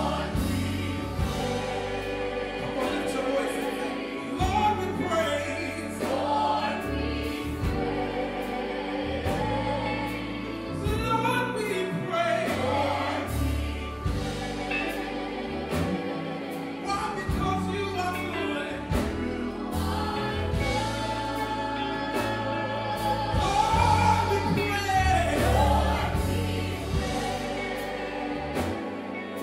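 Live gospel worship music: a choir and singers over a band, with a sustained bass line that changes note every second or two.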